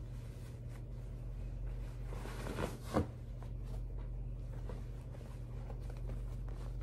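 Pair of denim jeans being unfolded and handled, the fabric rustling, with a louder brush of cloth about three seconds in. A steady low hum lies underneath.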